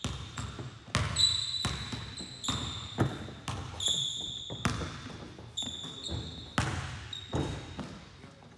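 A basketball dribbled hard on a hardwood gym floor in an uneven rhythm, about a dozen bounces. Short high sneaker squeaks on the floor come between the bounces as the player changes direction.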